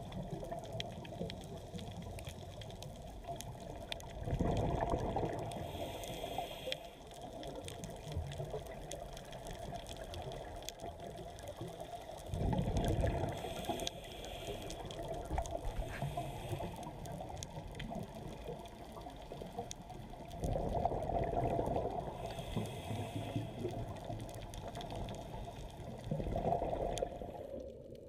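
Scuba diver breathing through a regulator, heard underwater: four low rushes of exhaled bubbles about eight seconds apart, each followed by a short hiss of the regulator on the next breath, over a steady underwater wash.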